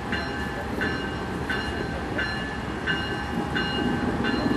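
Locomotive warning bell ringing steadily, about one and a half strikes a second, as the train moves slowly. A low diesel rumble runs underneath and swells a little near the end.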